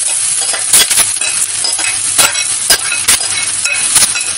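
Onions and spices sizzling in a stainless-steel kadhai while boiled, crumbled potatoes are tipped in and stirred. Sharp metal clinks against the pan ring out about seven times over the steady sizzle.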